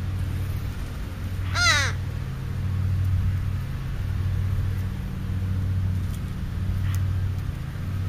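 A crow gives one short, harsh caw about a second and a half in, over a steady low hum.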